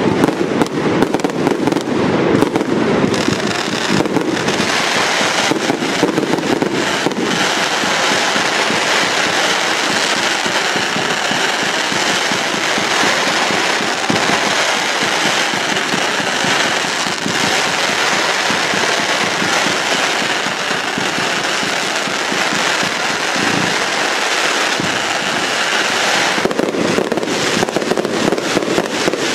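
Aerial fireworks display: a dense, continuous barrage of shell bursts and crackling stars. Sharp bangs come thickest in the first few seconds and again near the end, and a steady rush of crackle fills the middle.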